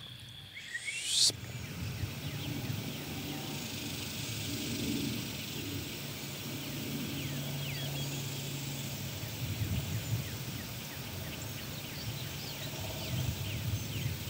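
Outdoor dawn ambience: many short, high bird chirps over a low steady hum. For about the first second a steady high insect trill is heard, then it cuts off.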